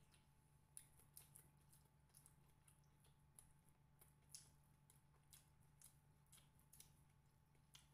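Faint eating sounds in near silence: irregular small clicks and smacks of chewing and of fingers working rice and food on a plate, over a low steady hum.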